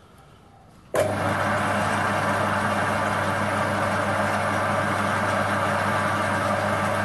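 Small metal lathe running steadily with the four-jaw chuck spinning, a steady motor and gear hum. It comes in abruptly about a second in.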